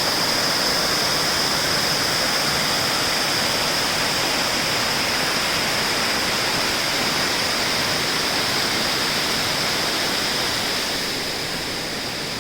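Steady rushing of two converging waterfalls, with a thin steady high hiss on top. It eases slightly near the end.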